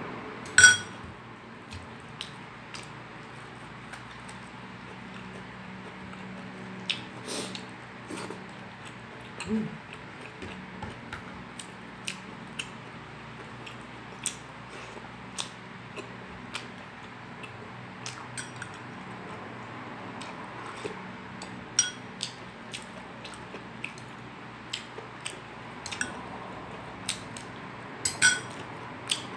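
Close-up eating sounds: scattered short clicks and smacks of chewing as rice and fried pork are eaten by hand, with a sharp clink of a spoon against the dish about a second in. A steady low hum runs underneath.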